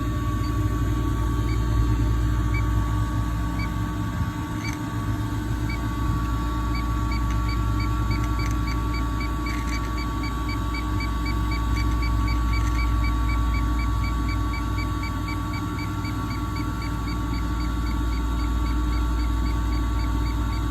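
Steady low machine hum with a few steady tones over it. From about a third of the way in, a faint high ticking repeats evenly about three times a second.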